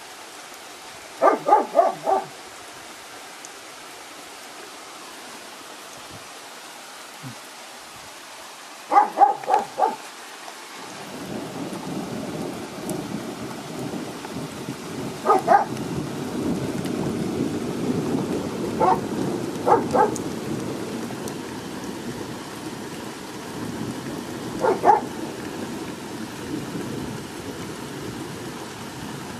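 Thunderstorm: steady rain with a long rolling rumble of thunder that builds about eleven seconds in and carries on. Over it a dog barks, first in two quick runs of four or five barks, then in pairs several times.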